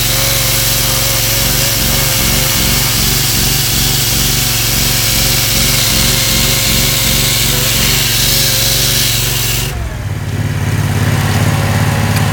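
Water-fed hydraulic concrete chainsaw cutting through a concrete wheel stop, with the engine of its hydraulic power unit running underneath. The saw stops suddenly about ten seconds in, leaving the power unit's engine running steadily.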